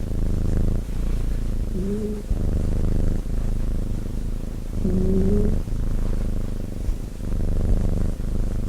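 Sleeping cat snoring: a low rumble that swells and fades with each breath, with a short whistling note on a breath about two seconds in and again about five seconds in.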